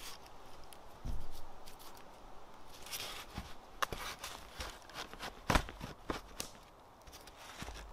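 Close handling noise of paracord being pulled and wrapped around crossed wooden sticks: rustling, creaks and sharp clicks, with a dull thump about a second in. Dry tinder crackles in the hand near the end.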